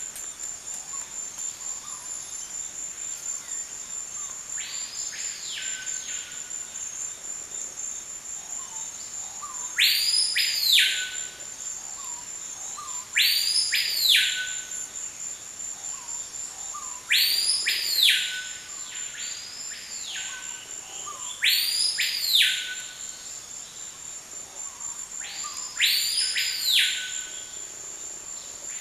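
Amazon rainforest ambience: a steady, high-pitched insect trill throughout, and over it a loud whistled call that sweeps up and then back down, about a second long, repeated every three to four seconds. The calls are faint at first and loud from about a third of the way in.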